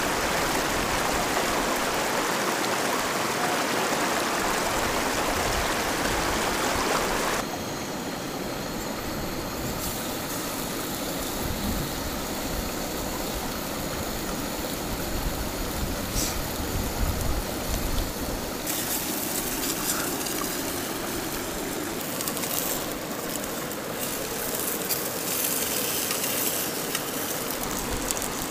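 Steady rush of river rapids. It is loudest for the first seven seconds or so, then softer and steady for the rest.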